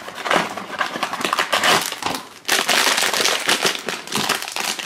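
A cardboard blind box being opened by hand and the foil blind bag inside crinkling and crackling as it is handled. The crinkling thins out briefly a little past two seconds, then comes back denser.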